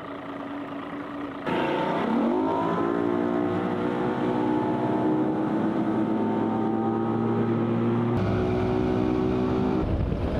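Mercury outboard motor on a bass boat running at low speed. About a second and a half in, it throttles up: the pitch rises, then holds at a steady high run as the boat gets on plane. A low rumble joins near the end.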